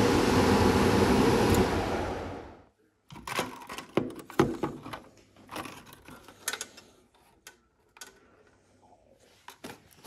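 Goodman gas furnace running, a steady loud rush of air with a low hum, which stops suddenly about two and a half seconds in. Then scattered plastic clicks and knocks as a white wall thermostat is handled and taken apart.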